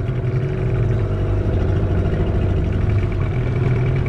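Small boat's outboard motor running steadily, coming up in level over the first half second as it is throttled up, then holding a steady drone.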